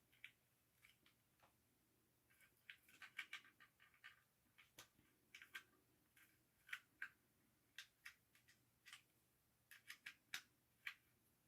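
Faint, irregular clicks, taps and scrapes of a hard plastic toy being handled and pried at, in small clusters.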